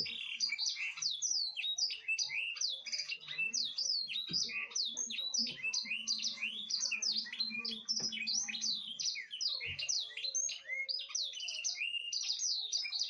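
A flock of lovebirds chattering nonstop, a dense mass of high, quick chirps and short falling squeaks, with a few faint knocks underneath.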